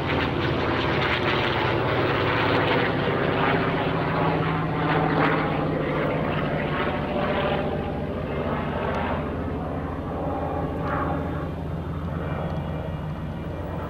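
A World War II warbird's radial piston engine running at power: a steady low engine drone with propeller noise over it, fading a little after about eight seconds.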